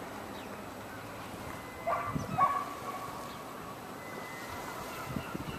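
Two short animal calls about half a second apart, about two seconds in, over a steady background hiss.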